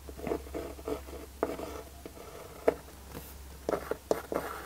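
Pencil scratching in short strokes on a formed kydex sheet, marking the line to cut, with a few sharper taps in between.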